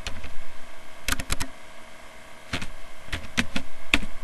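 Computer keyboard keys being typed: a quick run of keystrokes a little after a second in, then a few single strokes spread over the rest.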